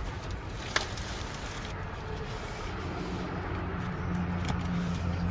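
Handling of product packaging during an unboxing: one sharp click about a second in, over a low steady hum that grows louder in the second half.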